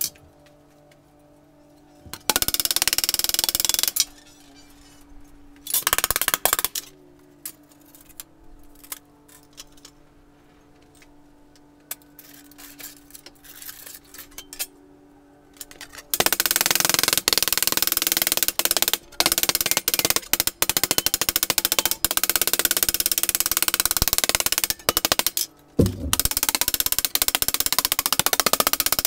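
Small hammer striking sheet metal in fast, rapid-fire blows, in short runs of a second or two early on and a long run filling most of the second half. Between the runs there are only a few scattered taps.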